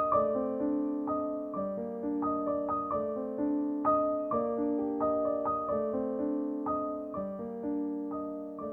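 Gentle background piano music, soft notes played in a slow, even pattern.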